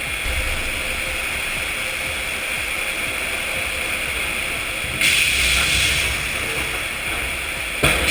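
Heavy logging truck running under load, a steady rushing noise that gets louder about five seconds in, with a short click near the end.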